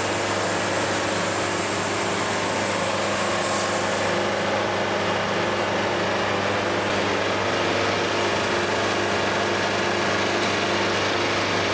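Band sawmill's engine running steadily at a constant speed, an even hum with no change in pitch or level.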